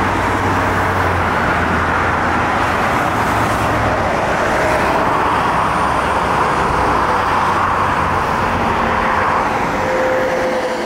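Steady highway traffic of trucks and cars driving past: engine drone and tyre noise. A low engine hum is strongest for the first four seconds or so and then eases.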